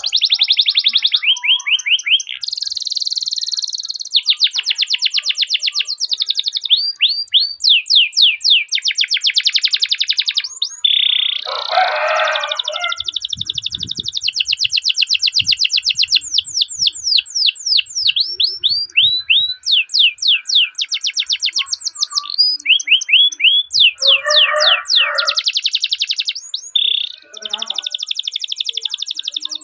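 Domestic canary singing a long, rolling song: phrase after phrase of rapid repeated high notes, each run a second or two long before switching to another. Twice a short, lower, rougher note cuts in between the trills.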